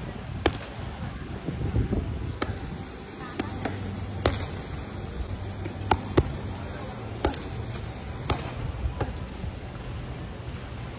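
Boxing gloves striking padded focus mitts: sharp smacks at uneven intervals, roughly one every one to two seconds, with a quick double strike around the middle.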